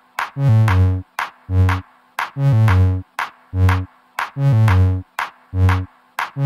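Electronic background music with a steady beat: low bass notes about once a second and sharp percussion hits between them.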